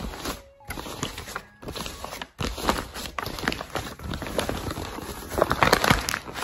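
Plastic bags and paper rustling and crinkling as hands handle them, with irregular crackles.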